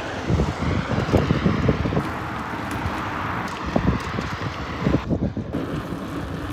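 Wind buffeting the microphone during a bicycle ride, an even rushing hiss with irregular low rumbles; the hiss drops off briefly about five seconds in.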